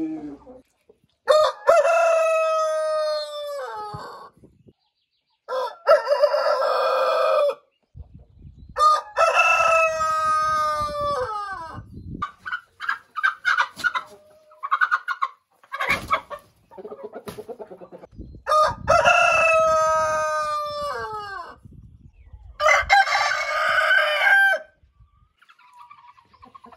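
Roosters crowing, five long crows each ending in a falling note, with shorter clucks and calls midway between them.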